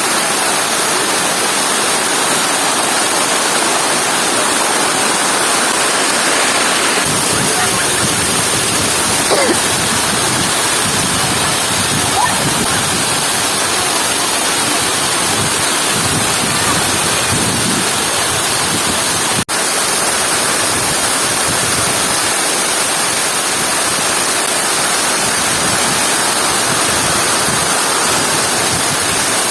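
Waterfall pouring: a loud, steady rush of falling water. The sound cuts out for an instant about two-thirds of the way through.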